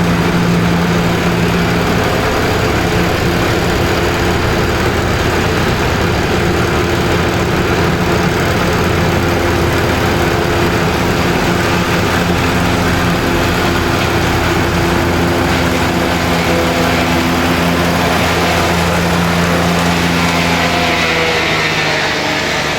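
Heavy tractor diesel engine running steadily under work, its pitch shifting near the end.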